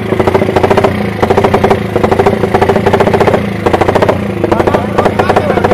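Motorcycle engine revved off-camera in rapid, repeated throttle blips, a fast pulsing that drops off briefly a few times.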